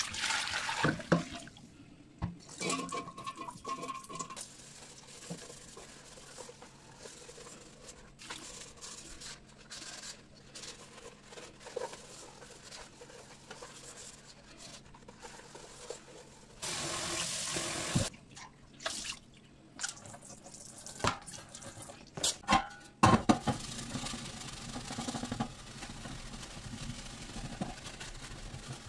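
Water poured out of an air fryer basket splashing into a stainless steel sink, followed by sponge scrubbing of the soapy basket with knocks as it is handled. A short rush of water comes about two-thirds through, and near the end a brush scrubs the perforated crisper plate over the sink.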